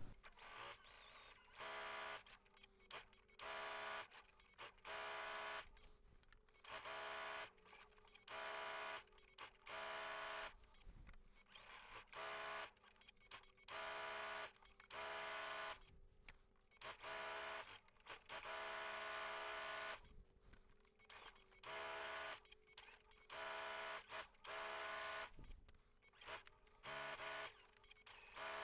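Electric sewing machine stitching fabric pieces in many short runs of about a second each, stopping briefly between them, at the same steady motor speed each time.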